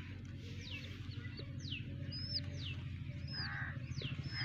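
A young chick peeping over and over: short, high calls that fall in pitch, about one or two a second, over a steady low hum.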